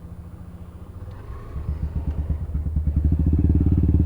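Motorcycle engine idling, then pulling away: from about a second in, the engine note and loudness build steadily as the bike accelerates, levelling off louder near the end.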